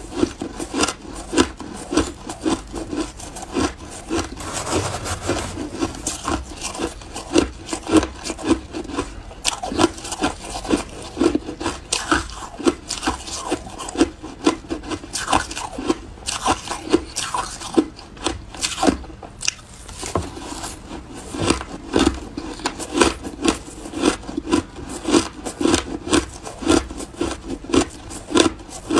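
Close-miked chewing of shaved ice: a steady run of crisp crunches, about two or three a second.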